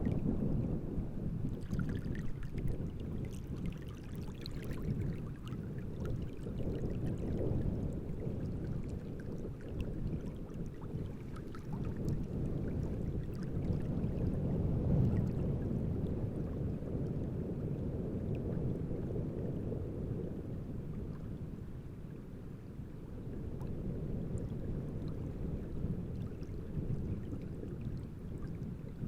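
Wind-driven waves on a large reservoir lapping and sloshing, over a low, surging rumble of wind. A few small, sharper splashes stand out in the first five seconds.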